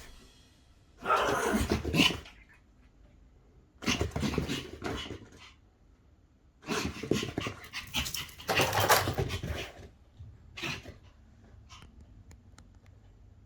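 Pomeranian panting and growling in play, in several bursts of a second or so each with short pauses between.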